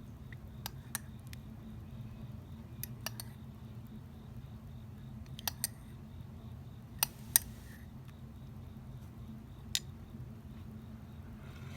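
Close-miked eating of homemade grapefruit preserve: scattered sharp clicks, about nine in all, the loudest a pair about seven seconds in, over a low steady hum.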